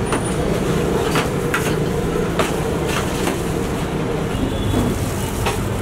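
A steady low mechanical rumble with a few light clicks and knocks over it.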